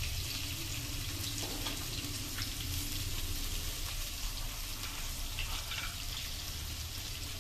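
Chopped onion, green chillies and diced carrot frying in hot oil in a kadai: a steady sizzle with small crackles.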